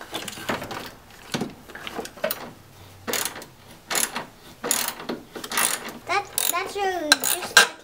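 Ratchet wrench clicking in short, irregular bursts as it works the nut on a car battery's hold-down clamp.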